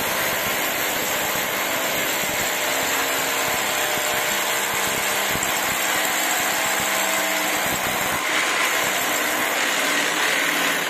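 Corded electric drill boring into a concrete wall, running steadily under load. Its sound changes about eight seconds in.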